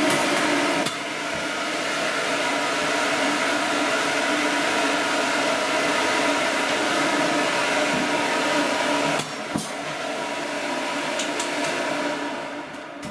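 Dog grooming blow dryer blasting air onto a wet dog's coat: a steady rush of air over a motor hum. It gets a little quieter about a second in and again about nine seconds in, then falls away near the end.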